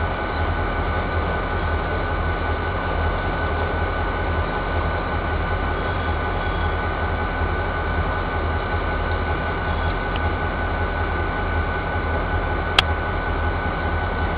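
Diesel freight locomotive running steadily in the yard, a low rumble with a steady whine above it. A single sharp click near the end.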